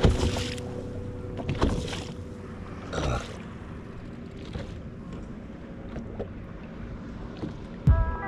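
Fishing boat on open water: a faint steady hum under wind and water noise, with a few short louder swishes in the first three seconds.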